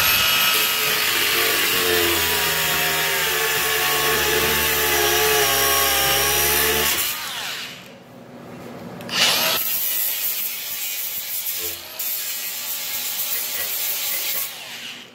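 Angle grinder with a cutoff wheel cutting through steel bar ends, its pitch sagging and wavering under load. It winds down about seven seconds in, starts again about two seconds later and cuts until near the end.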